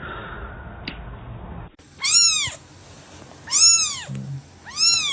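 A cat meowing three times, about a second and a half apart, each meow rising then falling in pitch.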